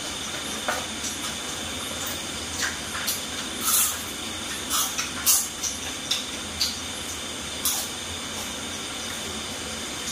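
Grasshoppers deep-frying in hot oil: a steady sizzle with sharp pops and crackles every second or so, the loudest about five seconds in.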